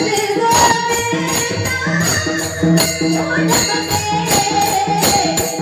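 Kirtan devotional music: a sustained melodic line over steady, evenly repeated jingling percussion strokes.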